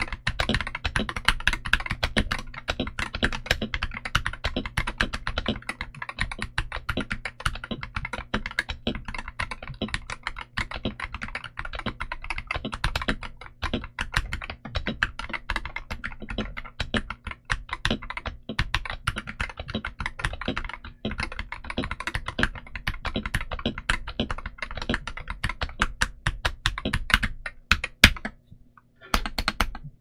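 Typing on a Keydous NJ68 65% Hall-effect keyboard with a brass plate, Outemu Magnetic Pink switches and ABS OEM keycaps: fast, continuous keystrokes. The typing stops for about a second near the end, then a few separate key presses follow.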